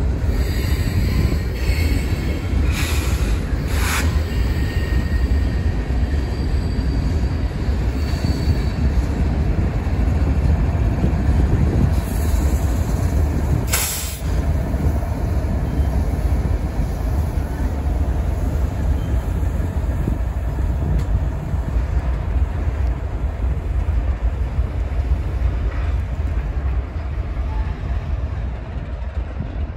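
Freight train rolling past: a steady heavy rumble of freight cars and a diesel locomotive at the rear of the train, with faint wheel squeal in the first several seconds and a few sharp clanks, the loudest about fourteen seconds in.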